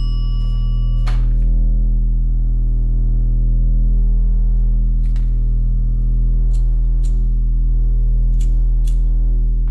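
Steady low hum made of deep, evenly stacked tones, with a few faint clicks scattered through it.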